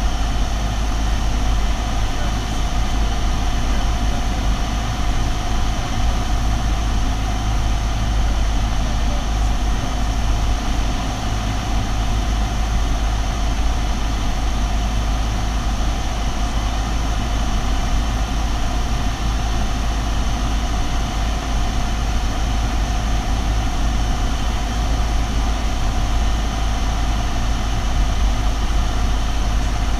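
Single-engine piston airplane's engine and propeller droning steadily, heard from inside the cockpit.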